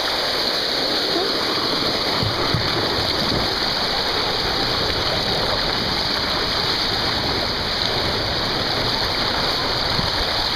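Steady rush of water running down a waterslide flume, with no pauses or changes.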